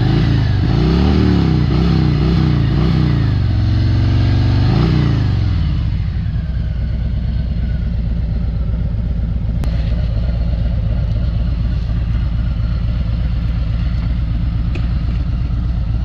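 Harley-Davidson Ultra Limited's V-twin engine revving, its pitch rising and falling again and again for the first few seconds, then settling into a steady low running from about six seconds in.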